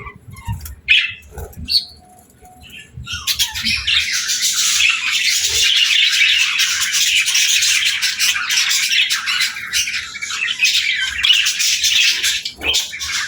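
Pet budgerigars calling: a few scattered chirps and soft low knocks, then from about three seconds in a dense, continuous chattering warble from several birds.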